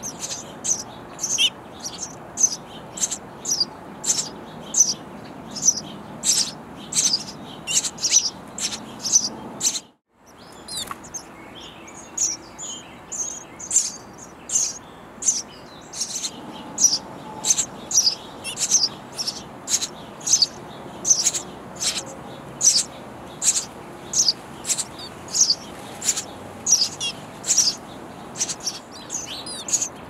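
House sparrow nestlings begging for food from a parent: a steady run of short, high chirps, about two a second. The chirps break off briefly about ten seconds in.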